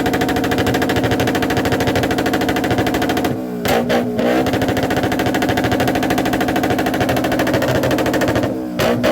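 Motorcycle engine held at high revs, its exhaust a rapid, rattling stream of pulses. Twice, about three and a half seconds in and again near the end, the revs drop briefly and pick back up.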